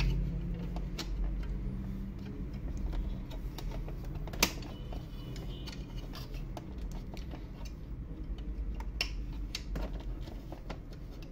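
Small plastic clicks and handling taps as a replacement paper-sensor clip is fitted into a Canon DR-F120 scanner's document feeder, with a sharper click about four and a half seconds in and a few more near the end, over a low steady hum.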